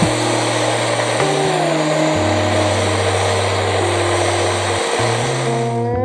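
Backpacking gas canister stove burning at full flame, a steady loud hiss that cuts off suddenly near the end. Ambient music with long held tones plays throughout.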